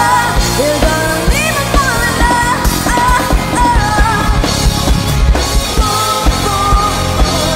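A woman singing lead with a live rock band of electric guitars, keyboard and drums, over a steady drum beat.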